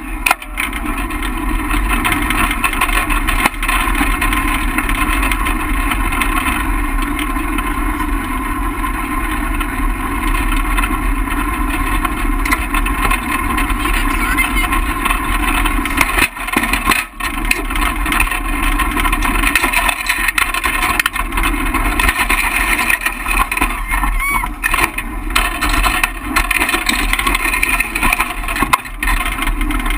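Jr. champ kart's small engine heard close up, starting right at the beginning and then running steadily at low speed, with no hard revving.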